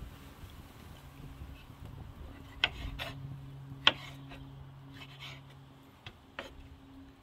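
Kitchen knife slicing soft roasted bell peppers on a wooden cutting board: a few sharp taps of the blade against the wood, uneven in spacing, the loudest a little before the four-second mark. A faint steady low hum runs underneath.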